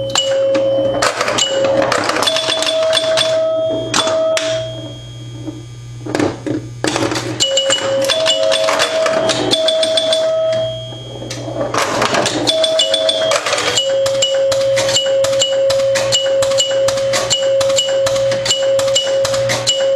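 1974 Bally Champ electromechanical pinball machine in play: rapid clicking and clacking of its relays, switches and stepper units, with held bell-like ringing tones that change pitch now and then, over a steady low hum.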